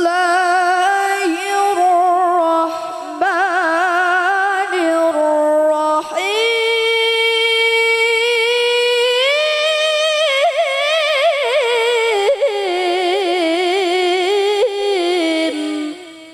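A young woman's melodic Qur'an recitation (tilawah, qiraah style), sung in long held notes with rapid wavering ornaments. The pitch steps up about six seconds in, climbs again a few seconds later, then falls back before the voice stops near the end.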